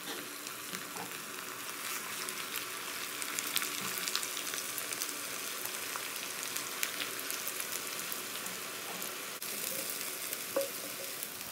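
Hot sugar-and-oil syrup bubbling and sizzling in a non-stick wok as half-cooked basmati rice is spooned and tipped into it, with a steady crackle of many small pops.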